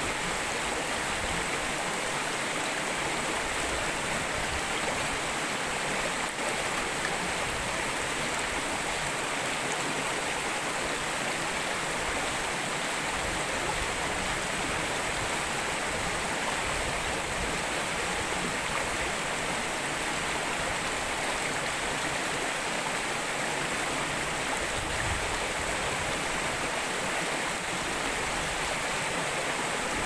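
Shallow rocky stream rushing and splashing steadily over a small cascade between boulders.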